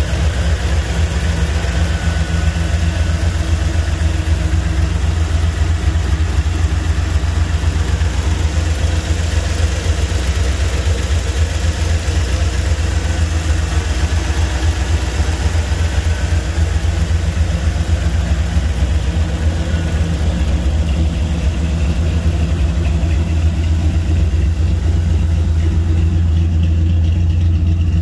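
Butler Performance Pontiac V8 in a 1955 GMC pickup idling steadily with a deep, even note.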